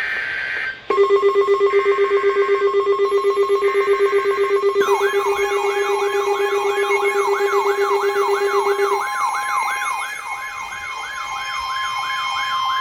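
Overlapping weather-radio alert signals. Three short screeching bursts of SAME digital header data sound over a pulsing low beep and a higher beep tone, and about five seconds in a siren-like alarm tone starts, sweeping rapidly up and down about three times a second, with the higher tone held steady beneath it.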